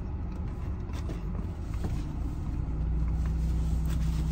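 Low, steady rumble of an idling car engine heard from inside the cabin. About halfway through it grows a little louder as a steady hum joins it. A few faint clicks sit over it.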